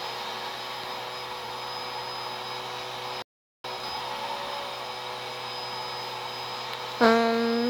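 Steady whirring of a small motor with a faint high whine, cut off briefly a little after three seconds in. Near the end a sudden loud held tone with several overtones starts and carries on.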